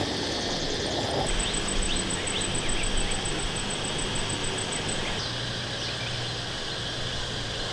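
Steady outdoor background noise with a few short bird chirps. For a few seconds, starting about a second in, an insect gives a high, rapid pulsing trill.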